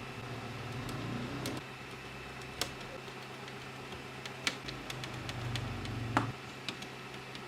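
A handful of scattered sharp plastic clicks and taps from a mechanical keyboard being handled and worked on, over a low steady hum.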